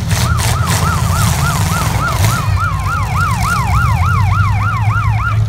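A siren wailing in quick, even rises and falls, about four a second, growing louder about halfway through. Under it is the steady low rumble of demolition derby car engines.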